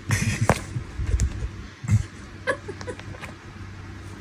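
A cat rubbing against and biting a plush catnip banana toy on a fleece blanket: irregular rustling, scuffing and soft knocks, loudest right at the start and again about two seconds in.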